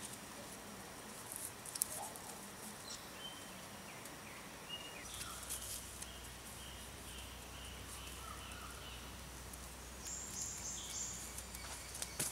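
Forest ambience: a steady insect hiss with scattered short bird calls. A few soft clicks and rustles from bark fibre and the drop spindle being handled.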